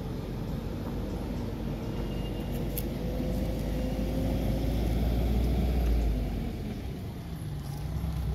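A motor vehicle's engine rumbling, its pitch rising slowly and its level building to a peak about six seconds in before falling away, as of a vehicle passing.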